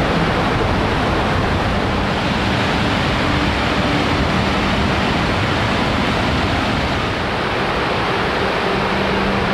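Fast-flowing creek rushing over rocks in small rapids: a steady, loud rush of water.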